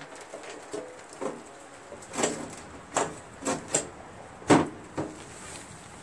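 A lawn tractor's plastic battery-compartment cover being fitted back into place under the seat: a handful of sharp plastic clacks and knocks about 2 to 5 seconds in, the loudest near the end.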